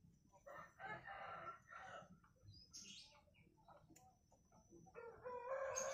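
A rooster crowing faintly, one call lasting a little over a second, starting about half a second in. Near the end another animal call rises and settles into a steady held tone.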